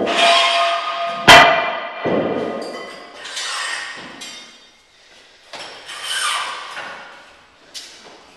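Cast-iron weight plates clanking as they are slid on and off a barbell and set down on a concrete floor: a handful of metallic knocks that ring on, the loudest a little over a second in, with smaller clanks after.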